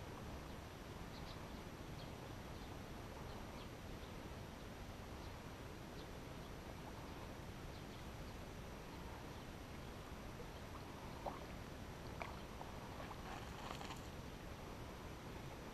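Faint steady outdoor background noise with scattered faint ticks, and two slightly louder clicks about eleven and twelve seconds in.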